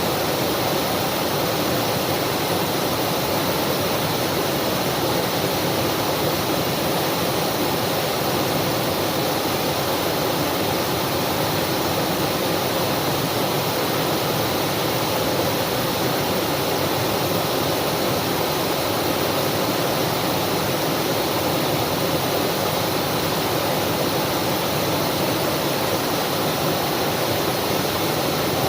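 Waterfall water rushing in a steady, unbroken flow.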